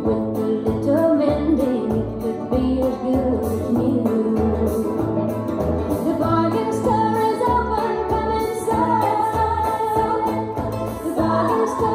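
Country music with a steady bass beat played through a pair of late-1960s Tandberg HS 17 three-way speakers, heard in a lively room.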